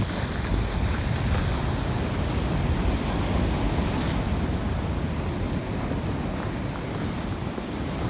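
Heavy surf from a rough sea, with wind rumbling on the microphone, steady throughout.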